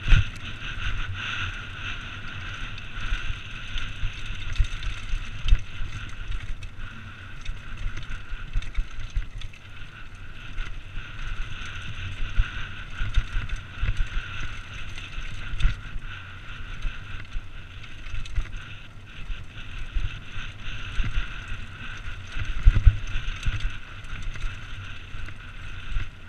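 Mountain bike running fast down a rocky singletrack, heard from a rider-mounted camera: wind rumbling on the microphone, with steady rolling noise and frequent short jolts and rattles as the bike hits stones.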